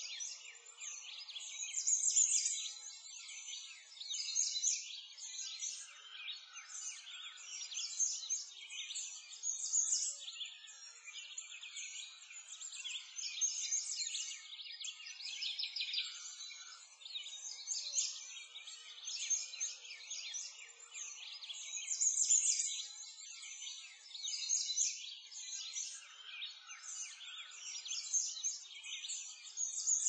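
A dense, continuous chorus of many small birds chirping and trilling together, swelling and fading every few seconds.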